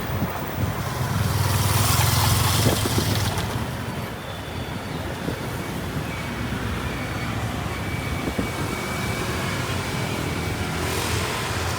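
Road and traffic noise heard from a moving vehicle: a steady low rumble with a rushing hiss that swells louder between about one and three seconds in, and again briefly near the end.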